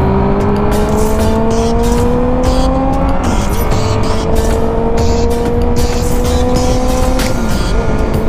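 Motorcycle engine pulling under acceleration, its pitch climbing steadily and then dropping at an upshift about three seconds in and again near the end, over a steady rush of wind noise.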